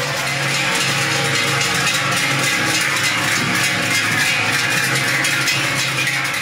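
Many large cowbells clanging and ringing without a break as a herd of cows walks in procession.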